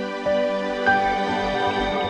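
Slow, soft music of sustained held chords, with new notes coming in about a quarter second and about a second in.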